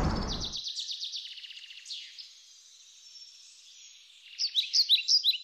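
Birds chirping and trilling, high-pitched and faint, with a few louder chirps that slide downward near the end.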